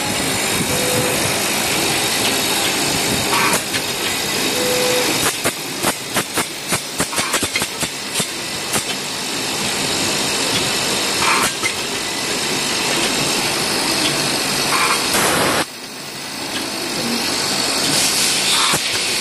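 Automatic nut thread-checking and sorting machine running: a steady mechanical din, with a run of quick, sharp clicks between about five and nine seconds in.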